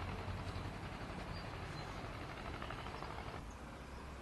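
Steady outdoor background noise with a low rumble and no distinct event. It turns a little quieter and duller over the last second.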